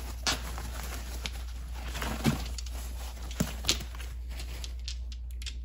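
White packing paper rustling and crinkling as it is unwrapped from small stone carvings by hand, with a few sharp knocks about a second apart.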